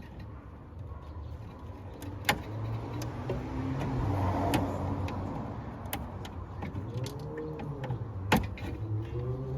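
Hands prying at a plastic grille-mounted raptor light that is stuck by a broken clip: two sharp clicks several seconds apart and a few fainter ones, over a low steady hum.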